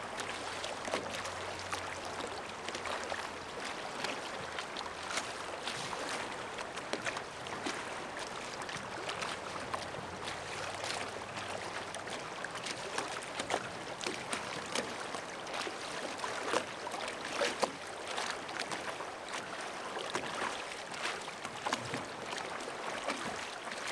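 Shallow river running fast over a cobble riffle: a steady wash of water with many small splashes and gurgles.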